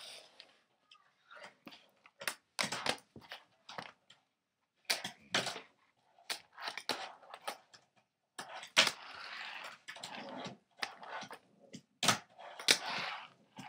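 Plastic DVD cases being handled and stacked on a wooden floor: a run of sharp clicks and clatters, with a couple of longer scraping stretches as cases slide.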